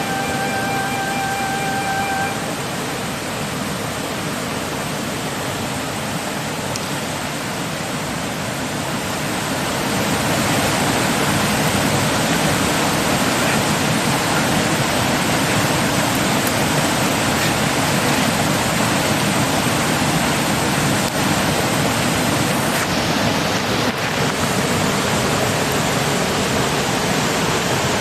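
Steady rushing noise, growing louder about ten seconds in and then holding even.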